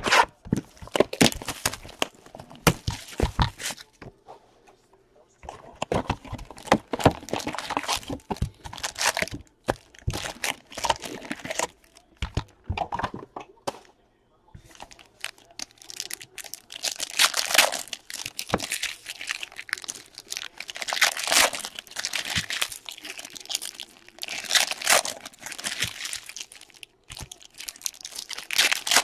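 Plastic wrapping on a box of trading cards and its packs being torn open and crinkled, in irregular crackly bursts with sharp clicks and a couple of short pauses.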